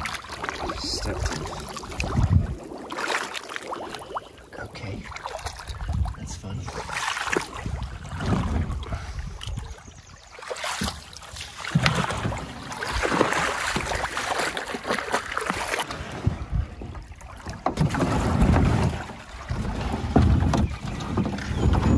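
Wading through shallow river water beside a plastic sit-in kayak: irregular splashing and sloshing of feet and water against the hull, with occasional low bumps.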